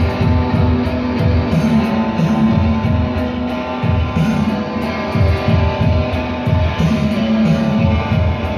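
Live electric guitar music played loud through an amplifier: sustained, droning notes over a repeated throbbing low end, with no break.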